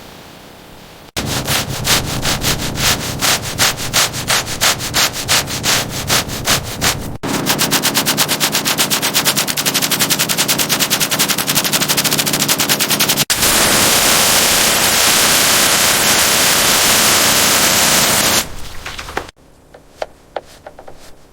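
Power tool work in loud cut-together bursts. First rapid hammering strokes about five a second, then faster hammering about ten a second, then a continuous whirring noise. Near the end a few sparse light ticks follow.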